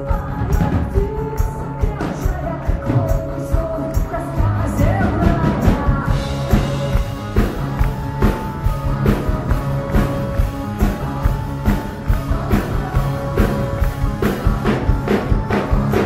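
Live rock band playing over a steady drum beat, with a lead vocal sung through the first few seconds. From about six seconds in the band's sound gets brighter and fuller.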